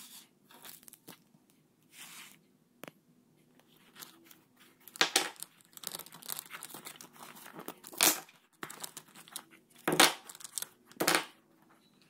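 Stationery being handled by hand and a pencil pouch rummaged through: scattered rustling and crinkling, with short sharp rasps about 5, 8, 10 and 11 seconds in.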